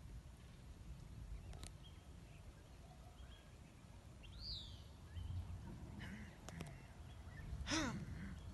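Low steady outdoor rumble with scattered bird chirps, one clear downward-sliding bird call about halfway through. Near the end a short, louder animal call drops quickly in pitch.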